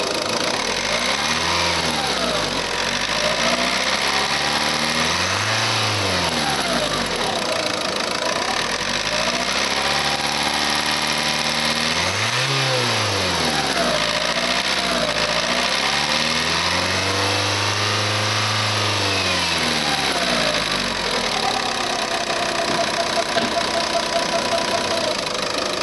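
Renault 1.9 dCi (F9Q) four-cylinder turbodiesel running, revved up and let fall back to idle about half a dozen times, the last rev held for a few seconds; it idles steadily near the end.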